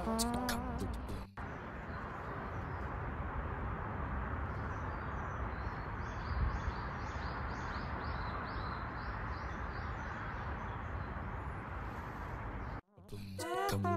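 A small songbird repeating short, high chirps, about two a second, over a steady rushing hiss of forest ambience. A sung music track fades out in the first second or so, and the ambience cuts off suddenly about a second before the end.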